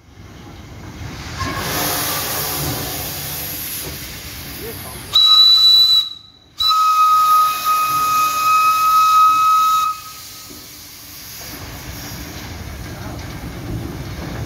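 AWE-class steam locomotive hissing steam, then sounding its steam whistle: a short blast about five seconds in, a brief break, then a longer steady blast of about three seconds. After the whistle stops, a quieter hiss and low running noise as the locomotive moves slowly along the track.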